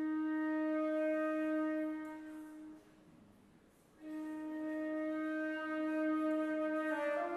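Flute playing long held notes low in its range, one pitched tone at a time. The first note is held for about three seconds, then there is a pause of about a second. A second long note follows, and the pitch steps up slightly near the end.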